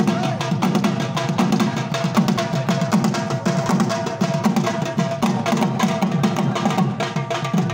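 Live dhol (barrel drum) playing a fast, steady rhythm for a Khattak dance, with a sustained melody line held above the drumming.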